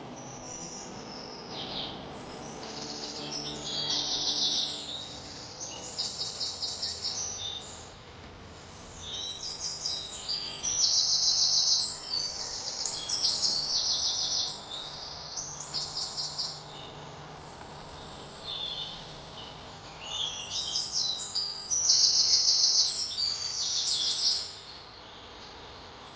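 Songbird singing: bouts of high, rapid trilled phrases and chirps, repeated every few seconds with short pauses between.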